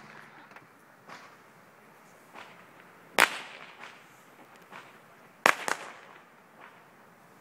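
Fireworks going off: two loud, sharp bangs a little over two seconds apart, each with a short echo, among fainter, more distant pops.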